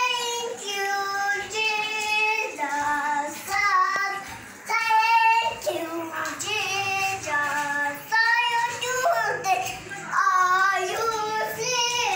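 A young child singing in a high voice: a song of short phrases with held, wavering notes and brief breaks between them.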